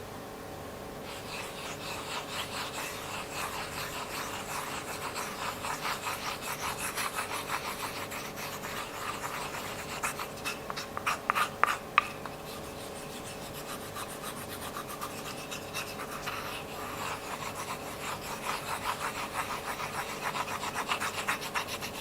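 Slime being mixed by hand: quick, rhythmic rubbing strokes, with a short run of louder sharp clicks about halfway through.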